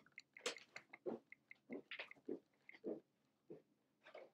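Faint, irregular footsteps and small knocks of a person walking away across a room, some half dozen soft steps spread over a few seconds.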